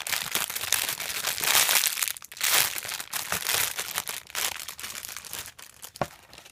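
Plastic packaging crinkling in irregular bursts as a squishy toy is handled and squeezed, dying away near the end after a single sharp tick.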